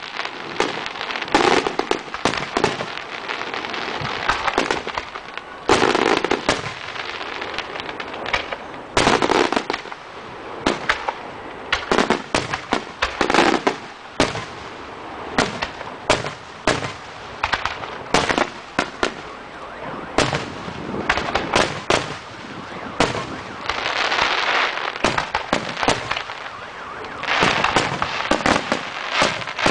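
Aerial fireworks shells bursting one after another, in sharp bangs at irregular intervals. Several bursts are followed by a stretch of crackling.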